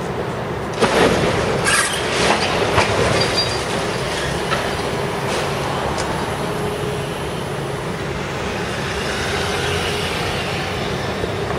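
High-reach demolition excavator running as its jaws crush and tear concrete floor slabs, with a cluster of sharp cracks and clanks of breaking concrete and debris about one to three seconds in. A car passes close by near the end.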